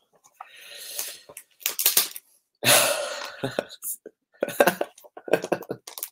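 Comic books in plastic sleeves rustling, crinkling and knocking as they are shuffled by hand, in irregular bursts, with a man's short breathy laughs.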